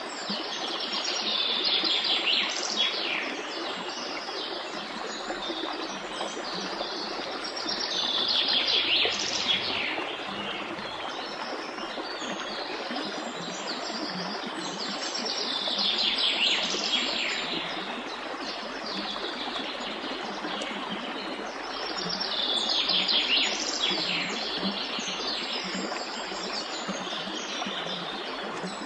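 A songbird singing the same phrase of quick falling notes four times, about seven seconds apart, over the steady rush of a flowing stream.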